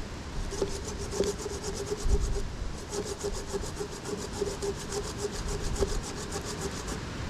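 Hand saw cutting through a dry log, going in quick, even back-and-forth strokes with a short pause about two and a half seconds in.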